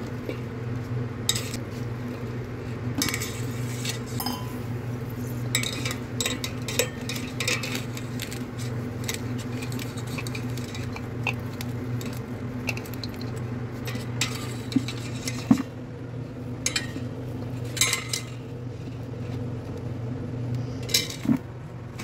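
Stainless steel mesh strainer and steel bowls clinking and scraping against each other as mango pieces are scooped out and tipped into the spice mix, in irregular sharp clinks. A steady low hum runs underneath.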